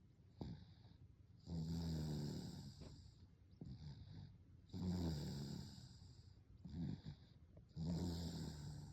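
A baby under a year old snoring: three low snores of about a second each, roughly three seconds apart, with short, quieter breaths between them. The snores are deep enough to pass for a grown man's.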